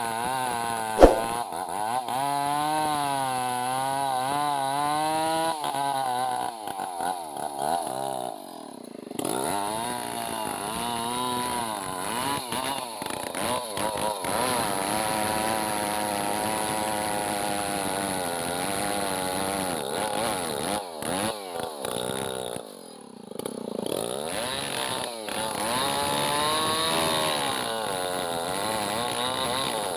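Two-stroke chainsaw cutting into a hardwood log, its engine pitch wavering up and down as the chain bites, easing off briefly twice before picking up again. A sharp click sounds about a second in.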